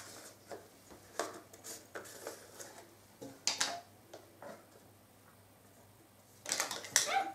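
Small clicks, taps and scrapes of handling charcoal teeth-whitening supplies, spaced out with quiet gaps, then a quick run of scratchy strokes near the end.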